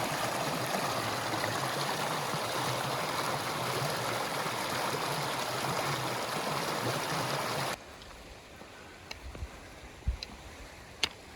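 Steady rush of mountain stream water, which cuts off abruptly about eight seconds in. A quieter background follows, with a few faint knocks.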